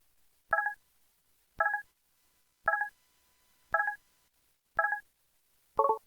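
Synthesized system sound effect from an EV-F200 mobile phone's Qualcomm CMX chip: a short electronic chime of a few tones, repeated about once a second, six times, the last one lower in pitch.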